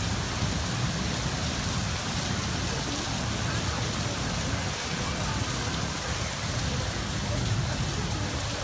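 Steady rain, an even hiss with a low rumble underneath.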